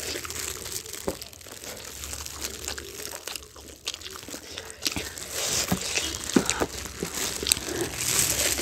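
Eating sounds: biting into and chewing saucy fried hot wings, with several sharp crunches, while clear disposable plastic gloves crinkle and rustle.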